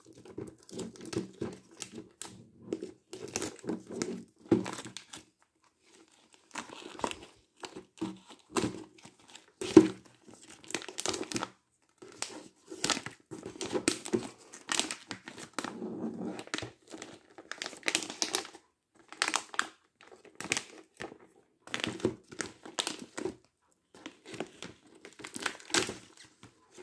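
Plastic shrink-wrap film crinkling and crackling as it is cut with scissors and pulled off a cardboard box, in irregular bursts with a short lull about six seconds in.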